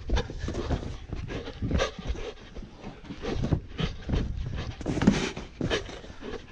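A dog panting hard right at a camera that it carries in its mouth, with irregular breathy huffs mixed with knocks and rubbing as the camera jostles.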